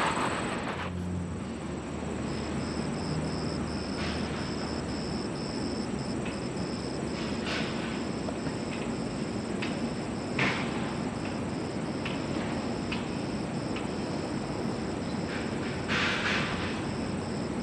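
An insect chirping in a high, fast, even pulse over a steady background hiss, with a few brief rustles.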